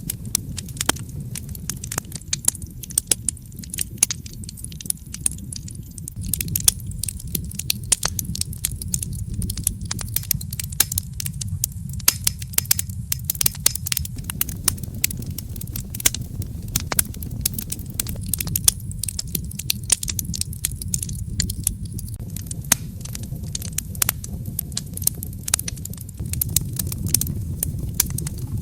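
Wood fire crackling and popping over a low, steady rumble of flames, with frequent irregular sharp pops.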